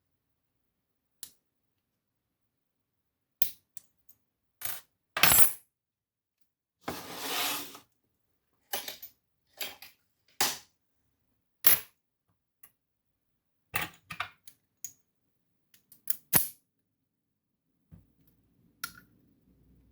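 Small metal lock parts clicking and clinking as a DOM Plura lock is taken apart, in about a dozen separate sharp knocks with a longer rattle around seven seconds in; the loudest clinks come about five and sixteen seconds in.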